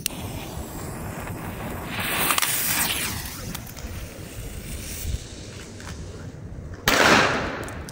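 Wind buffeting the microphone, then about seven seconds in a sudden bang from a Funke 'Blauer Berber' F2 firecracker with a 1.5 g flash charge, dying away over about a second.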